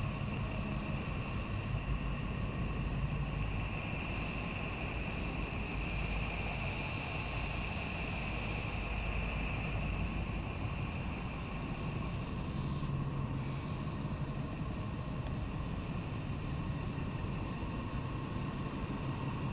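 Electric drive motors of a home-built Apollo sextant replica running as the mount slews. They make a steady whir with a low hum and a high whine that swells and fades, dropping out briefly about two-thirds of the way through.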